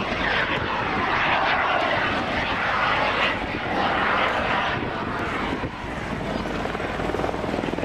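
Small jet engine of an aerobatic jet glider running, a continuous rushing whine that swells and ebbs as the glider climbs vertically and tumbles.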